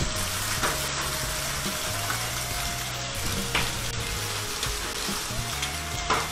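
Heavy rain and hail falling: a steady hiss with a few sharp hits from hailstones striking, and low background music underneath.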